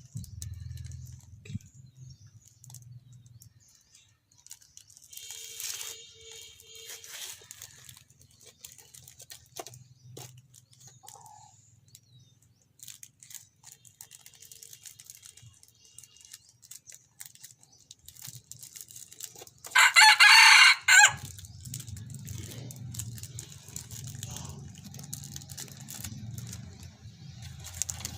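A rooster crows once, loud and about a second and a half long, about twenty seconds in. A fainter crow-like call comes around six seconds in.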